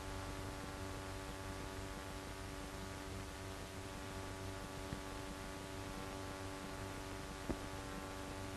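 Steady hum and hiss of an old film soundtrack, with two faint clicks, about five seconds in and again near the end.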